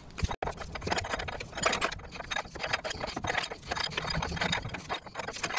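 Rapid, irregular clicking and rattling of a wrench working on the crankshaft pulley bolt as a Nissan A14 engine is turned over by hand, bringing cylinder one up to top dead centre.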